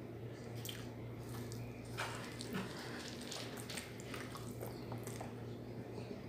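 Close-up wet eating sounds: fingers squishing sauce-soaked rice and canned sardines, and a mouth chewing and smacking, in many short scattered clicks. A steady low hum runs underneath.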